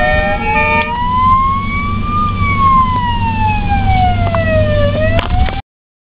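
Ambulance siren wailing, heard from inside the vehicle's cab. It makes one slow rise in pitch over about two seconds and a slower fall over about three, over a steady low engine hum, and cuts off abruptly near the end.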